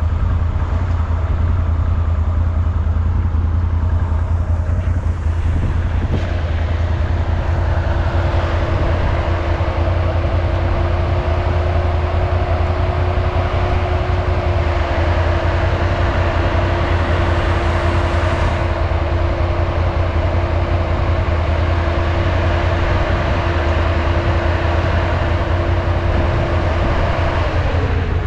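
Off-road ATV engine running at steady revs with a low rumble. A steady whine joins it about six seconds in and winds down near the end.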